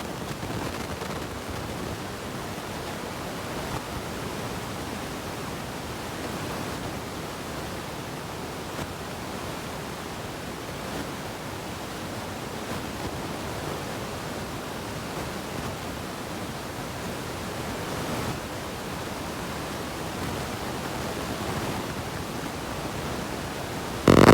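Steady, even hiss with no ticking or other pattern, ending in a brief loud sound.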